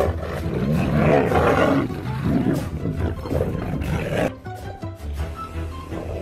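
Tigers growling and roaring as they tussle, over background music. The roaring stops about four seconds in, leaving the music.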